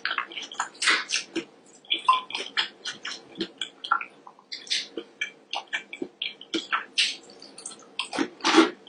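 Close-up mouth sounds of eating fried seafood: wet chewing, smacking and crunching, several short sharp sounds a second.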